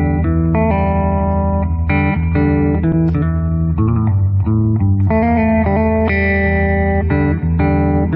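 Instrumental intro music: a guitar-led tune over a bass line, with the notes changing about every half second.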